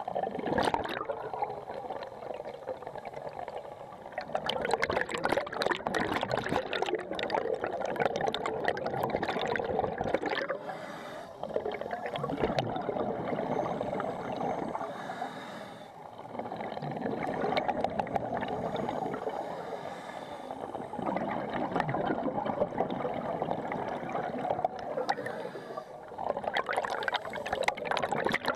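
Scuba breathing underwater: a regulator's exhaled bubbles gurgling and bubbling in long surges, easing off briefly between breaths about every four to five seconds.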